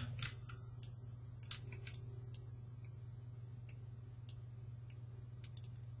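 Scattered, irregular clicks of a computer mouse and keyboard, about ten in all, over a steady low hum.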